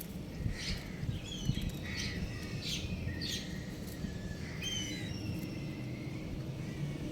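Young rooster chirping: a string of short, high chirps, then a few longer, slightly falling peeps about five seconds in, over steady low background noise.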